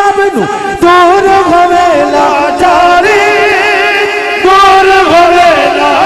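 A man singing a loud, drawn-out wordless melodic phrase of a naat, holding notes and bending between them, amplified through a microphone.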